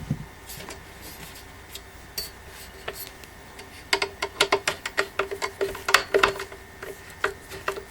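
Screwdriver and steel support being handled against the wooden panels during assembly: light metallic clicks and knocks, a few scattered at first, then a quick irregular run of them from about halfway through.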